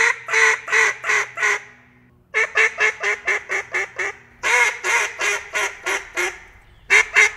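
Duck call blown in a fast chop-chop cadence: four runs of short, clipped quacks at about five a second, with brief pauses between runs, over a faint low hum.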